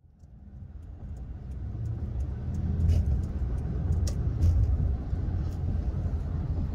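Steady low road and engine rumble of a moving car heard from inside the cabin, fading in from silence at the start, with a few faint clicks.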